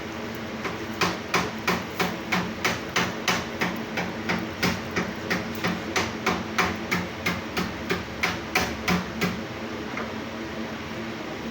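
Rapid, regular tapping or knocking, about three sharp strikes a second, that stops near the end, over a steady low hum.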